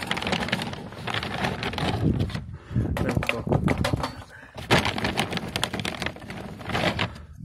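Weber charcoal briquettes clattering as they are dropped one by one into a wire charcoal basket, a string of irregular knocks and clicks with short pauses between handfuls.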